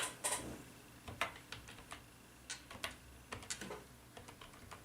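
Typing on a computer keyboard: a run of irregular, light key clicks, the first few louder than the rest.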